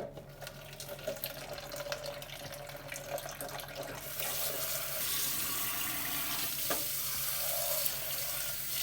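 Kitchen tap running water into a sink, with a few light knocks; the flow gets louder about four seconds in.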